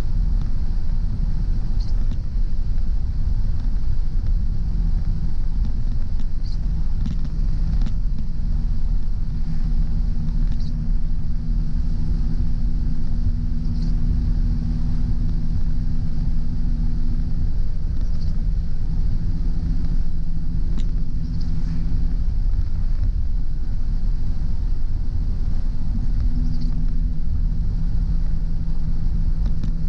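Car driving on a rain-wet road: a steady low rumble of road and engine noise, with a hum that steps up and down in pitch a few times and brief faint ticks every few seconds.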